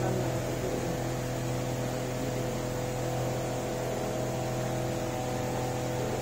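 Steady electrical hum of a running appliance, with an even hiss and no change throughout.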